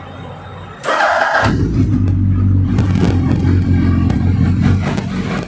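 Suzuki Hayabusa's 1340 cc inline-four starting: a brief burst of starter cranking about a second in, then the engine catches and runs steadily and loudly through an aftermarket carbon-fibre slip-on exhaust.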